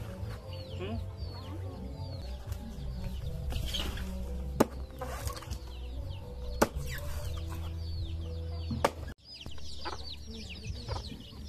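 Chickens clucking and chirping in a farmyard, over a steady low hum. Three sharp knocks stand out above them, spaced about two seconds apart.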